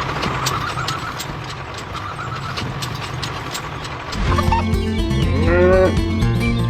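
Intro music and sound effects: a steady ticking over a hiss, then about four seconds in a louder music track comes in with deep bass notes and a wavering, sliding tone.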